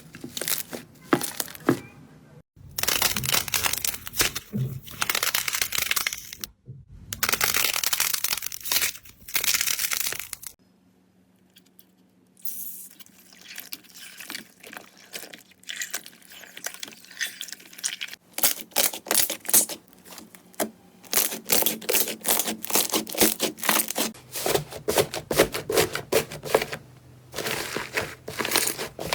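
Slime being squeezed, poked and stretched, with dense crackling, popping and tearing sounds in several separate stretches and a brief quiet pause partway through.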